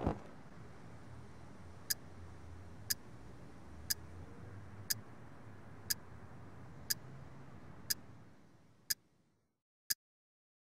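Clock ticking steadily once a second, from about two seconds in, over a low room hum that fades out about eight seconds in, leaving only the ticks. It opens with a soft thump as a blanket drops onto a bed.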